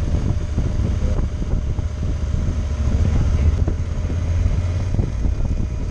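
Motorcycle riding at low city speed, a steady low rumble of engine and wind buffeting on the bike-mounted microphone.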